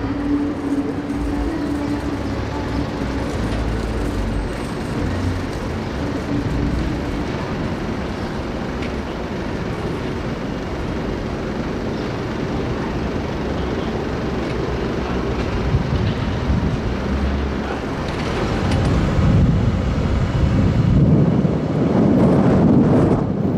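Steady rumble of city street traffic, with no single clear event, growing louder in the last few seconds.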